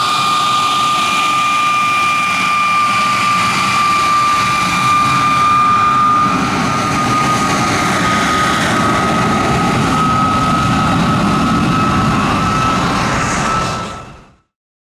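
de Havilland DH.112 Venom's single Ghost turbojet whining steadily as the jet taxis, a high tone riding over the engine noise. The sound fades out near the end.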